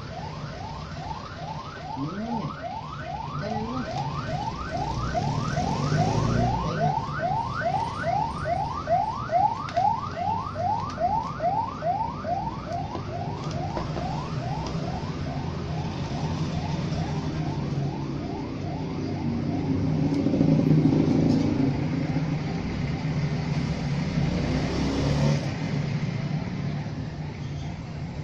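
An electronic alarm siren whooping in quick rising sweeps, about three a second, that fade out about halfway through. Under it runs a steady low rumble like traffic, which swells about two-thirds of the way in.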